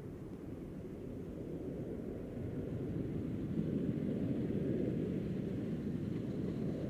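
Boeing 767-300ER jet engines rumbling low and steadily, growing louder over the first few seconds and then holding.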